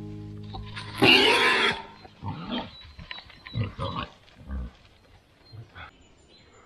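Pigs vocalising: one loud squeal about a second in, then a series of short grunts.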